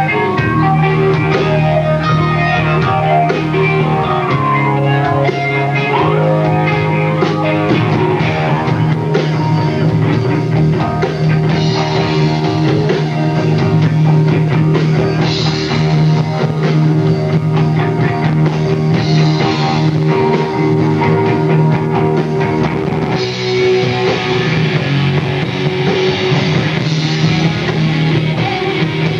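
Live rock band playing loud, with electric guitars, bass guitar and drum kit.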